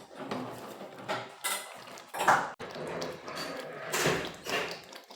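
A metal spoon stirring and scraping in a cooking pot of stew, with clinks and clatter of the utensil against the pot, loudest about two seconds in.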